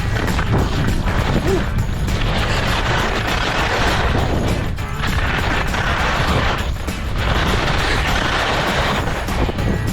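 Snowboard riding: wind buffeting the microphone in a constant low rumble, and the board's edge hissing and scraping across snow in long surges about two seconds each, one per turn.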